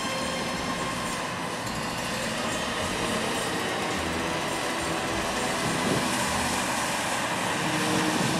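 Wakeboard tow boat's engine running as the boat pulls a rider past, under a steady rushing noise.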